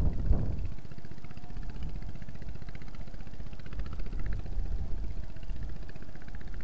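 An engine running steadily with an even, rapid pulse, plus a brief louder low thump right at the start.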